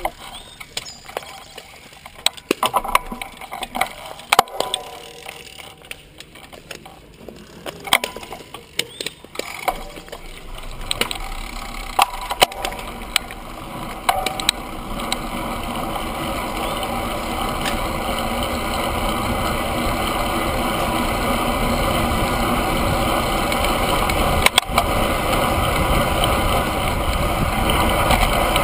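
Road bicycle setting off from a stop and picking up speed, heard from a handlebar-mounted camera. Scattered clicks and knocks come first. From about ten seconds in, a steady rush of wind and tyre noise grows gradually louder as the speed builds.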